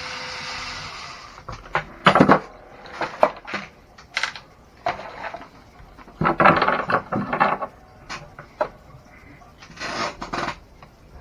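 Hand tools and hard plastic RC truck parts clicking, knocking and scraping in irregular bursts as parts are worked loose during disassembly. A steady hiss dies away about a second and a half in.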